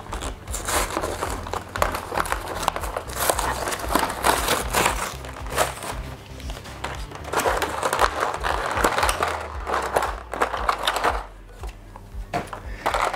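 Plastic and paper packaging crinkling and rustling as a model-kit part is unpacked, with background music playing underneath.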